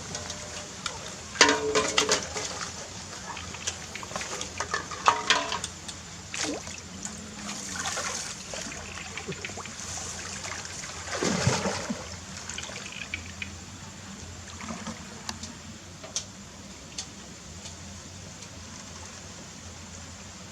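Water splashing and trickling, with a few louder irregular splashes.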